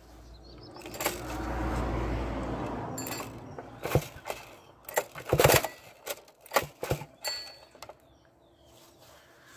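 A couple of seconds of rustling, then a run of sharp metallic clinks and knocks, about eight in four seconds, from hands handling the metal parts of a small tiller whose engine is not running.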